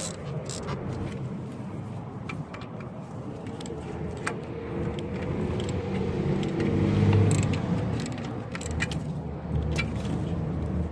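Scattered metallic clinks of sockets and wrenches on the engine as an alternator is bolted in, while a passing vehicle rumbles, growing louder to a peak about seven seconds in and then fading.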